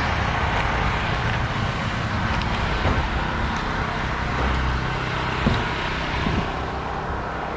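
An engine running steadily, with a few faint knocks.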